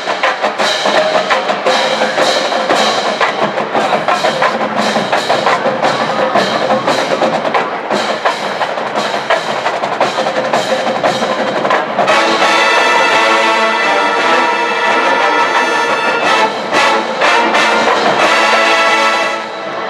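Marching band playing, brass over a drumline with a dense run of drum strikes. About twelve seconds in, the brass swells into fuller held chords, and the music breaks off just before the end.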